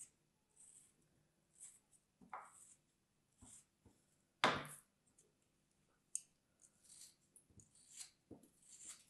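Moulded kinetic sand being sliced with a thin blade: soft, gritty scrapes and crumbles about once a second, with one louder scrape about four and a half seconds in.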